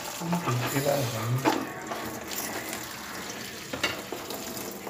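Kitchen tap running into a sink while something is washed under it, with a couple of sharp clatters, one about a second and a half in and another near four seconds.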